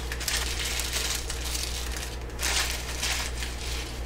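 Food wrap crinkling and rustling in irregular bursts as it is folded and wrapped around a flatbread, over a low steady hum.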